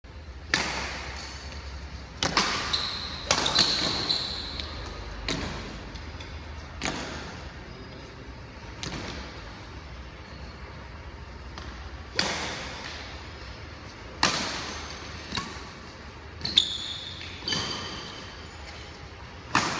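Badminton rally: sharp racket strikes on the shuttlecock, about a dozen at irregular intervals of one to two seconds, echoing in a large hall. Short high squeaks from court shoes on the floor come twice.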